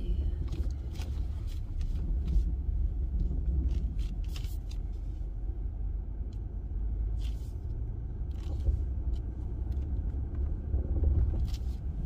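Jeep Gladiator driving on a snow-covered forest road, heard from inside the cab: a steady low rumble of engine and tyres, with scattered clicks and knocks.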